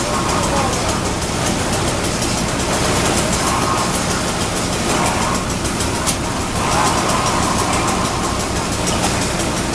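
Fire engine running steadily while pumping water to the hose lines, a constant low engine drone under a broad hiss.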